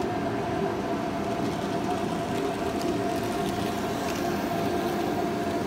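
N gauge Union Pacific F-unit model locomotive running on its track, with a steady whine from the electric motor over the noise of its wheels on the rails.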